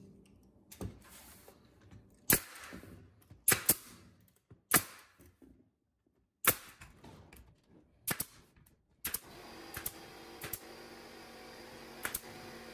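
Pneumatic nail gun firing nails through wooden shoe molding: about ten sharp shots at uneven intervals, some in quick pairs.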